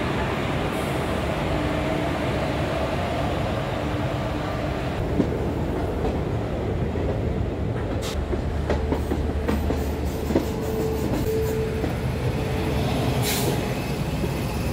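Passenger train running on the rails, heard from aboard a non-AC coach: a steady rumble of wheels and coaches with a few sharp clicks along the way.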